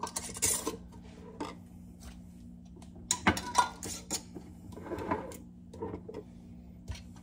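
Metal screw bands clinking and scraping against glass mason jars as they are screwed on fingertip tight over the lids. The light clinks come at uneven intervals, the sharpest about three seconds in, over a faint steady hum.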